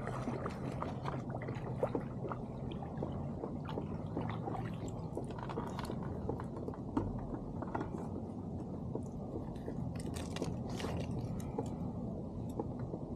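Mechanical clicking and grinding from a fishing reel being worked as a hooked rainbow trout is brought alongside and netted, with scattered sharp knocks and clicks from handling the rod and net.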